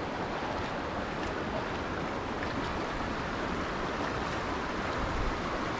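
Steady rush of a shallow mountain river flowing over stones and pebbles.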